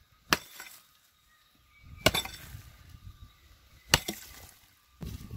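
Three hard strikes of a long-handled digging tool into dry, stony soil, about two seconds apart, each followed by a brief rattle of loosened earth.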